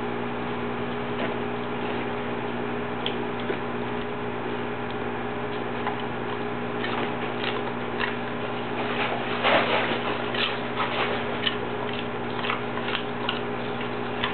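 Dog chewing raw broccoli, a run of irregular crisp crunches and clicks that comes thickest in the second half, over a steady low hum.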